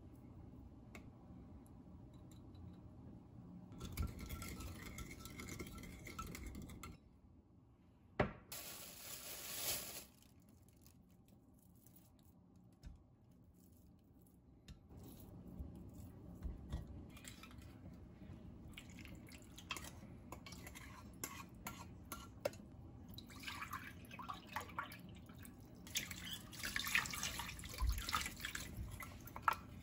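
Kitchen cooking sounds: dishes and utensils clinking and knocking, with a brief rush of running or poured water about nine seconds in, and a busy run of clatter near the end.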